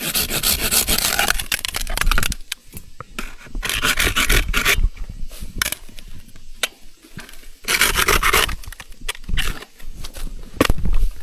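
Branches and brush scraping and rustling in four loud noisy bursts, the sound of an obstruction being dragged and pushed aside.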